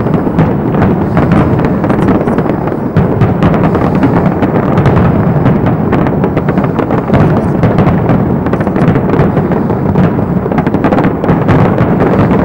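Aerial fireworks shells in a rapid barrage: many bangs and crackles overlapping into one loud, unbroken rumble.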